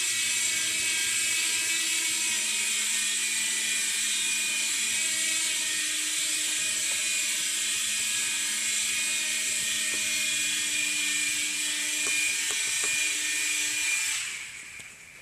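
Air Hogs toy remote-control helicopter's small electric motor and rotors whirring at a steady pitch, then winding down near the end.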